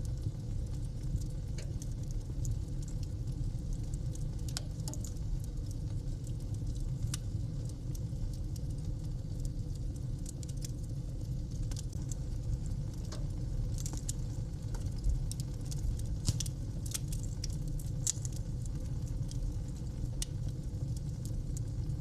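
Wood fire burning in a fireplace: irregular sharp crackles and snaps over a steady low rumble, with a couple of louder pops about two-thirds of the way through.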